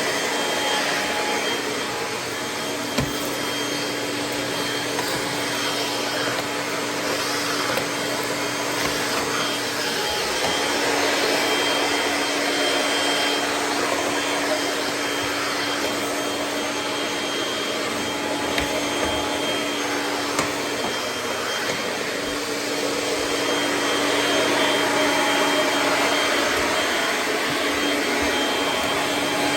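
Kirby G6 upright vacuum cleaner running steadily while vacuuming a hard floor, a constant motor drone with a faint high whine and an occasional light knock.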